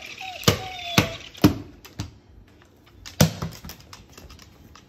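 A cockatoo playing with a plush toy on a hardwood floor: about six sharp taps and knocks at uneven intervals, with a brief squeak near the start and a quieter gap around the middle.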